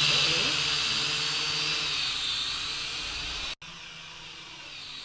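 Small toy quadcopter's electric motors and propellers running with a high whirring buzz that grows fainter over the first three and a half seconds. The sound breaks off abruptly, then a fainter hiss continues.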